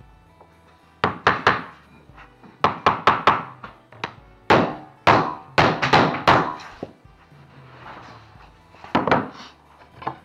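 Claw hammer tapping a floating vinyl plank to seat its joint against the laid rows. The taps come in clusters of quick sharp knocks with pauses between. Background music plays throughout.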